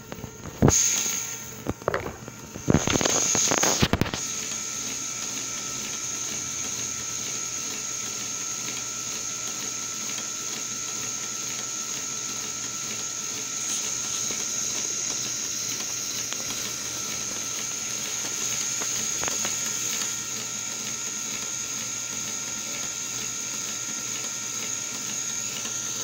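Lego one-cylinder engine model turned by its electric motor: the motor whines high and steady while the plastic gears, belt and crank whir evenly. A few loud knocks come in the first four seconds, then it runs on steadily.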